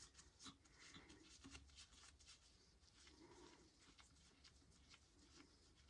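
Near silence with faint, irregular small clicks and scratching: a head stud being tightened into the engine block by hand.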